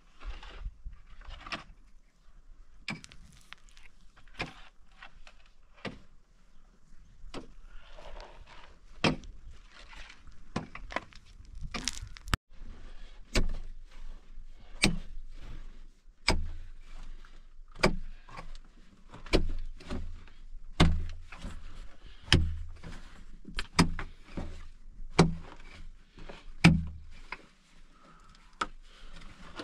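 A pickaxe striking dry, stony earth over and over as a cave is dug out: sharp irregular hits about once a second, with heavier dull thuds in the second half.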